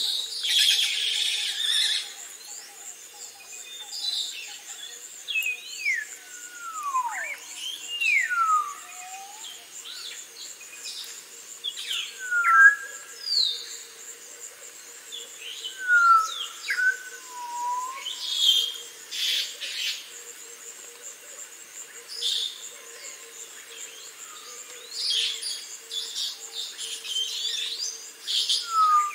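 Parrots calling: clear whistles that glide down in pitch, mixed with harsh screeching calls. A faint steady high buzz runs underneath.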